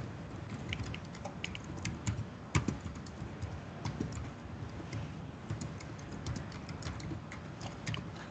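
Typing on a computer keyboard: irregularly spaced key clicks with short pauses between runs.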